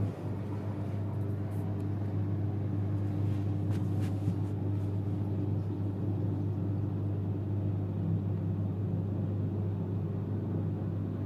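AEG Lavamat LC53500 washing machine running with a steady low hum, and a few faint clicks over the top.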